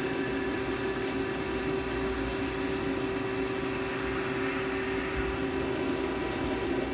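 CNC lathe running through a machining cycle, cutting a spiral grip pattern into a pen cap under flood coolant: a steady machine hum with a held tone over a constant hiss of coolant spray.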